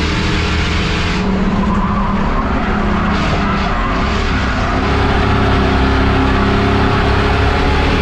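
Race car engine running steadily at high revs with tyre and road noise, getting a little louder about five seconds in.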